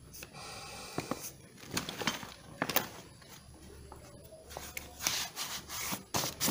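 An inflated scuba BCD being handled: a brief hiss of air at the start, then knocks, scrapes and rustles of its nylon shell as it is turned over and its bladder pressed, testing the repaired bladder for leaks.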